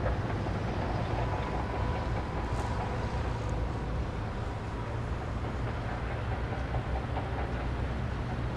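Steady low mechanical rumble, with a faint steady whine above it from about one to three seconds in.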